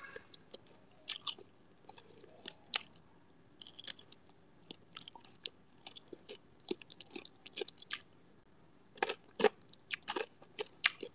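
A person chewing and biting crunchy food, with irregular crunches scattered throughout and a few louder ones after about nine seconds.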